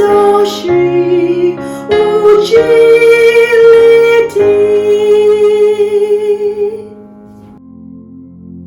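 Music: singing with instrumental accompaniment. A long held note fades out about seven seconds in, leaving soft, sustained low chords.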